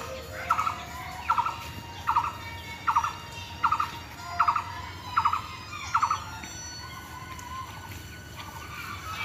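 A bird calling over and over, a short rapid call a little more than once a second, about eight times, stopping about six seconds in.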